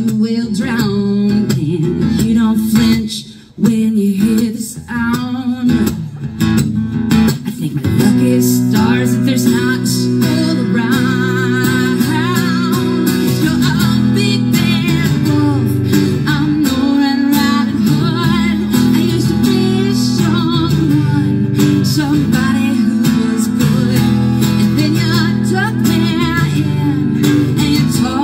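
A woman singing to her own strummed acoustic guitar through a microphone and small PA speaker. The sound drops away briefly about three seconds in, then the song runs on steadily with held, wavering sung notes.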